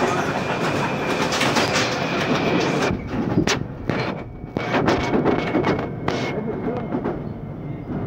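Electric commuter train running at speed, heard from inside the carriage: a steady rumble of wheels on rails, with a few sharp clicks and knocks over the second half.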